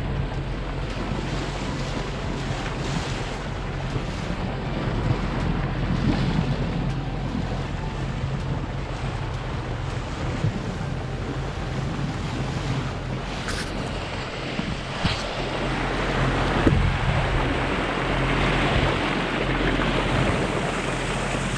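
Water rushing and splashing along a moving boat's bow, with wind buffeting the microphone, over the steady low hum of the boat's Yamaha outboard engines.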